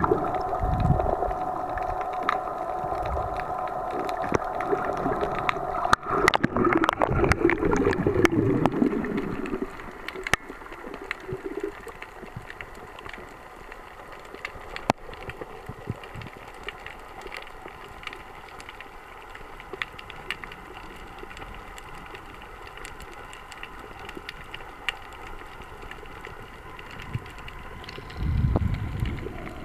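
Underwater sound from a snorkeler's camera: a steady hum with a few pitched tones and bubbling for the first ten seconds or so, then a quieter hiss with scattered sharp clicks, and a low rumble near the end.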